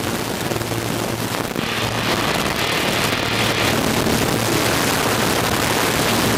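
Extra 300 aerobatic plane heard from inside the cockpit: its six-cylinder Lycoming engine and propeller running with a steady hum, under a rush of wind noise that grows louder about two seconds in as the plane dives vertically out of a stall turn and gains speed.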